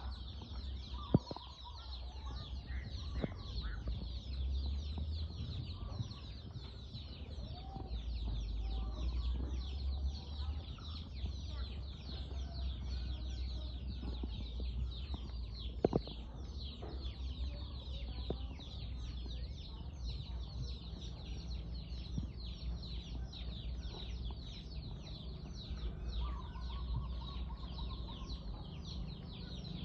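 Chickens clucking over a constant dense high chirping, with a low rumble underneath and two sharp knocks, one about a second in and one about halfway through.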